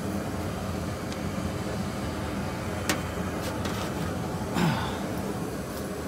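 Steady hum of a running gas furnace, with a sharp click about halfway through, a few lighter clicks and a short knock shortly after.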